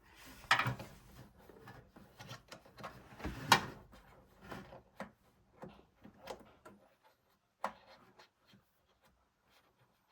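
Scattered clicks, taps and brief rubbing of parts and tools being handled, the loudest about half a second and three and a half seconds in, growing sparser toward the end.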